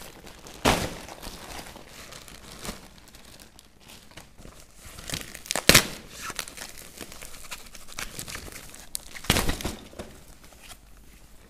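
Plastic bag and white foam packing wrap rustling and crinkling as a parcel is unwrapped by hand. There are three louder crackles: about a second in, near the middle, and near the end.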